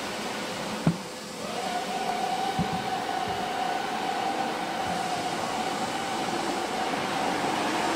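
Five-axis CNC router running, its gantry and head moving with a steady whine that comes in about a second and a half in over a constant hiss. A single sharp knock about a second in is the loudest sound.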